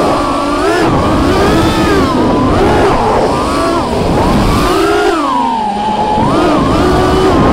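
Brushless motors and props of a 5-inch FPV racing quadcopter (Emax Red Bottom 2205 motors on HQ 5x4x4 props), heard from the craft itself: a loud whine that keeps rising and falling in pitch as the throttle changes, with its deepest drop about six seconds in, over a rumble of rushing air.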